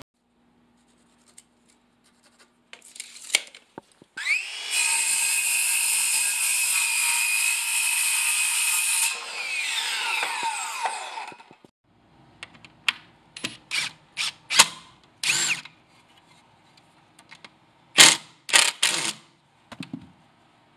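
Cordless circular saw spinning up with a rising whine, cutting through a board for about five seconds at a steady pitch, then winding down once released. A string of knocks and clatters follows.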